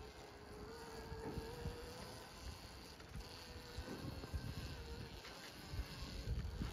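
Electric dirt bike motor whining, a thin buzzing tone that rises a little at first, holds, then fades about five seconds in, over a low gusty rumble.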